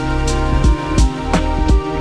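Background music with a steady beat: sustained pitched notes over deep bass, with drum hits about three times a second.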